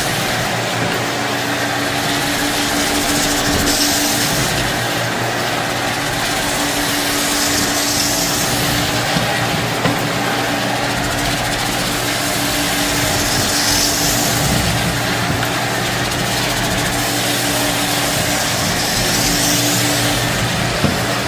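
Vacuum cleaner running steadily on carpet, a constant motor hum under a rushing suction noise that swells every few seconds as it is worked back and forth.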